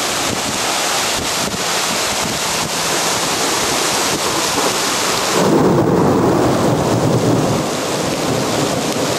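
Heavy rain pouring down in a thunderstorm deluge, a dense steady hiss. About halfway through, the hiss thins at the top and a louder, deeper rumble takes over for a couple of seconds before the plain rain noise returns.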